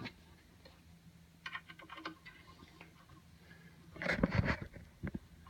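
Small metal clicks and hand handling on a Logan lathe's headstock cover as its thumb screws are put back on and turned in. A louder knock and rattle of handling comes about four seconds in. A faint steady hum lies underneath.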